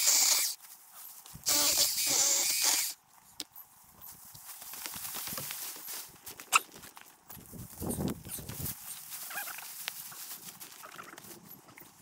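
An animal calling: a short call, then a longer wavering call about a second and a half in.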